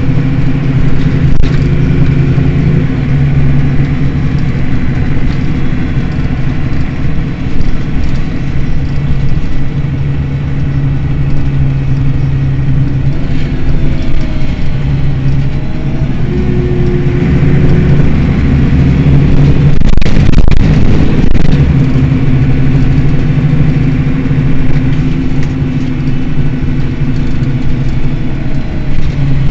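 Mercedes-Benz Citaro city bus's diesel engine running, its low hum swelling, fading and shifting in pitch several times as the bus works. A loud rush of noise comes about two-thirds of the way through.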